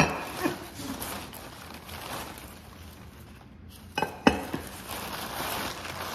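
Packing paper rustling and crinkling as it is pulled open and crumpled by hand. Two sharp knocks come close together about four seconds in, with a lighter one just after the start.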